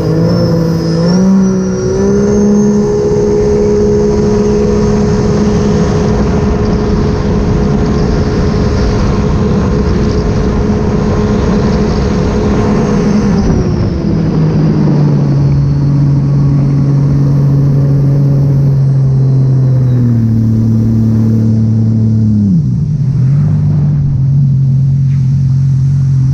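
Sea-Doo RXP-X 300 jet ski's supercharged Rotax 1630 engine running under throttle over a steady rushing noise, with a high whine. The revs climb in the first two seconds and hold steady, ease off about thirteen seconds in, pick up briefly around twenty seconds, then drop again a couple of seconds later.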